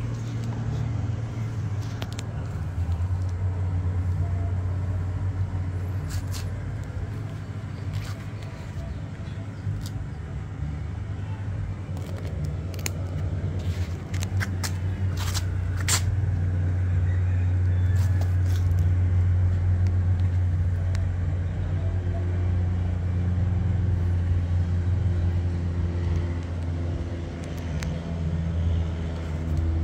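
A steady low mechanical hum, like a motor running at a constant speed, with scattered light clicks and knocks from handling, most in the middle of the stretch.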